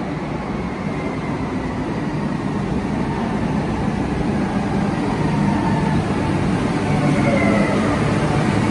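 Renfe Cercanías electric commuter train pulling into an underground station, its rumble growing steadily louder as it comes alongside the platform, with a faint falling whine near the end as it slows.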